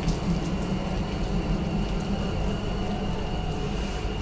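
Automatic train wash plant running on a metro car: a steady hiss of water spray over the sides and rotating brushes, with a low machine hum beneath it.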